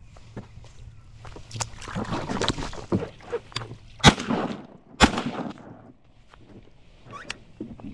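Two shotgun shots about a second apart from a kayak, the first the louder, after a couple of seconds of knocking and water splashing.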